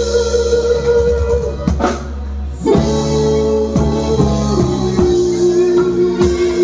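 Live band playing an instrumental passage: electric keyboard holding chords over electric guitar and a drum kit. The music drops back briefly about two seconds in, then the band comes back in with a drum hit.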